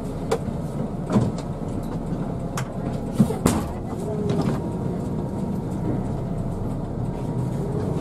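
Cabin of an intercity bus under way: steady engine and road noise, with several sharp knocks and rattles in the first half.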